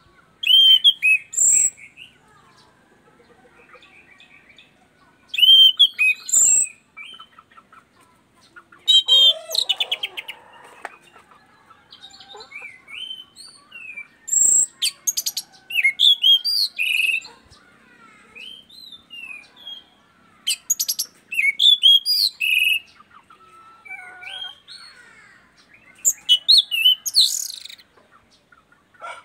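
A caged punglor (orange-headed thrush) singing in full voice: loud, varied phrases of quick whistles and chattering notes every few seconds, with short quieter gaps between them.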